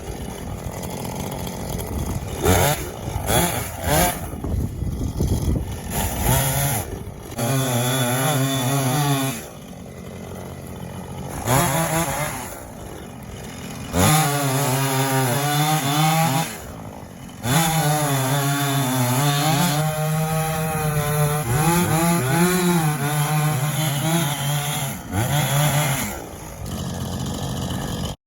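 Two-stroke chainsaw cutting up the limbs of a fallen tree, revving up and dropping back to idle again and again.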